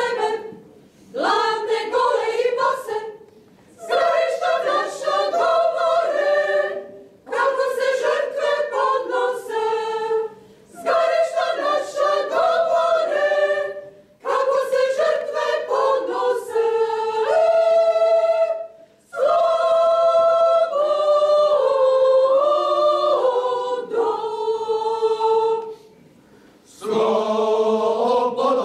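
Women's choir singing a cappella in full chords, in short phrases broken by brief pauses for breath.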